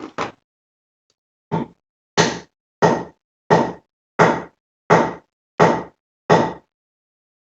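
A hammer striking metal: a quick double knock, then about eight even blows roughly two-thirds of a second apart, each with a short metallic ring.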